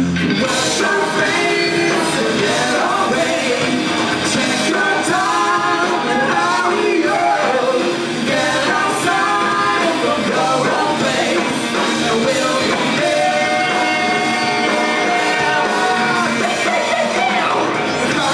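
Rock band playing loudly and steadily, with a lead singer's voice over the instruments.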